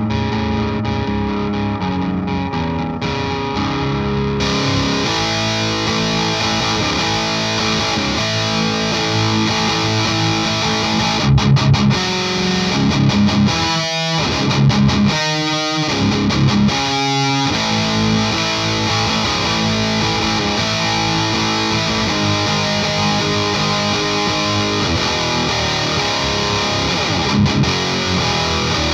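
Electric guitar played through a Parks Custom Pedals Dagon OD, a Klon-style overdrive pedal, into a Marshall JCM900 amp: overdriven chords and riffs, with a stretch of fast, choppy picking around the middle.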